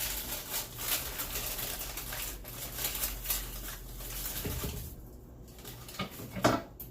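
Rustling and light clicking of food and utensils being handled, with a short louder knock near the end.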